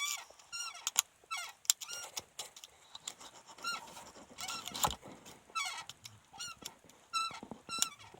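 Driver's seat of a 2011 Kia Cerato Koup squeaking: a string of short, high squeaks, about one or two a second, with sharp clicks among them.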